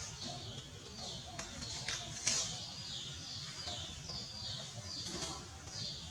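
Short, high chirps repeating about twice a second, each one falling in pitch, with a few sharp clicks about two seconds in.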